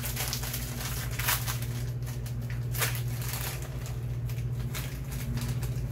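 Small plastic snack bag of cheese twists crinkling as it is opened and handled, in scattered rustling crackles, with a steady low hum underneath.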